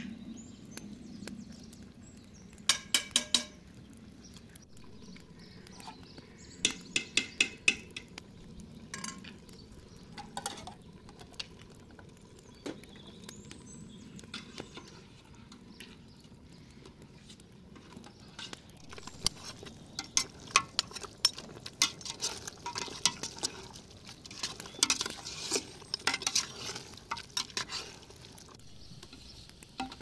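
Metal pots, lids and utensils clinking and scraping together on a cooking stove: a quick cluster of ringing knocks about three seconds in, another around seven seconds, then a long busy stretch of clinks and scrapes through the second half.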